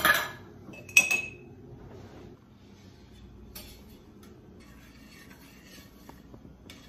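Stainless steel saucepan and metal utensils clanking on a gas stove. There is a loud knock right at the start, then a sharp metallic clink with a brief ring about a second in, followed by faint clinks of a spoon in the pan of melting ghee.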